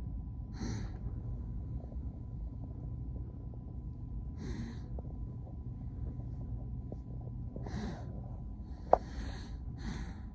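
A person breathing close to the microphone, five short hissy breaths, over a steady low rumble. A single sharp click about nine seconds in is the loudest sound.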